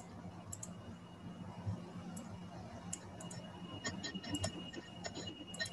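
Irregular light clicks of a computer keyboard being typed on, coming thicker in the second half, over a faint steady hum.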